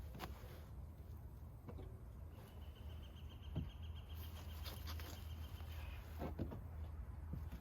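Scattered light clicks and taps from handling small plastic parts and wiring, over a low steady hum. A faint, slightly pulsing high tone runs for about three and a half seconds from a couple of seconds in.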